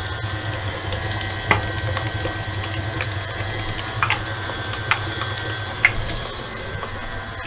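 Stand mixer motor running steadily as it beats cheesecake batter, with a few sharp clicks scattered through.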